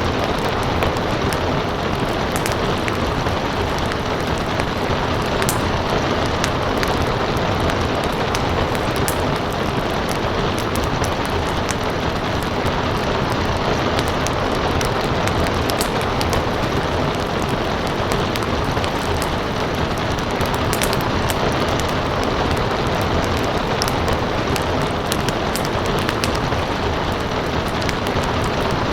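Steady rain hiss with a wood fire crackling, sharp small pops scattered irregularly throughout.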